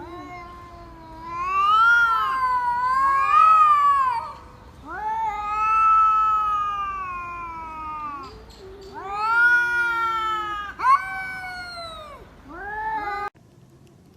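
A cat yowling in a series of long, drawn-out calls that rise and fall in pitch, one after another, cutting off abruptly near the end.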